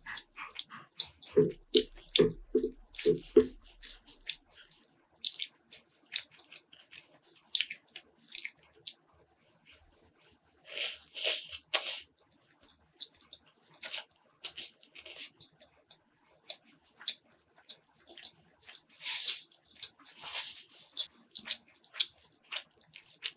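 Close-miked eating: chewing with many wet mouth clicks and smacks, and a few louder, longer bursts of eating noise about eleven, fourteen and nineteen seconds in.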